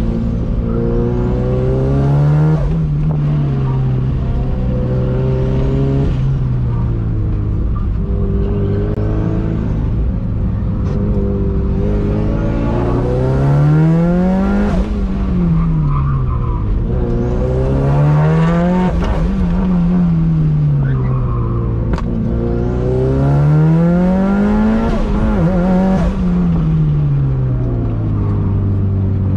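Mitsubishi Lancer Evolution's turbocharged four-cylinder engine driven hard on an autocross course. Its note holds steady for stretches, and several times it climbs sharply under acceleration, then falls away as the throttle lifts for the next corner.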